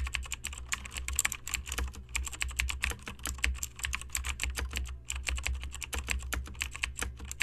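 Typing on a computer keyboard: rapid, irregular key clicks with short pauses about two seconds and five seconds in, over a low steady hum.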